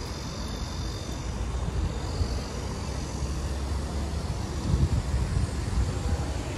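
A steady low outdoor rumble, with a few louder low surges about five seconds in.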